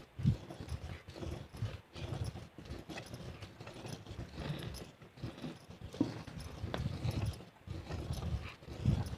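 A cow being milked by hand: repeated squirts of milk into a pail, coming in short uneven pulses.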